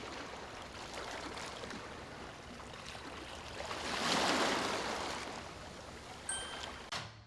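Waves washing on a shore: a steady rush of water that swells to a peak about four seconds in and then eases off.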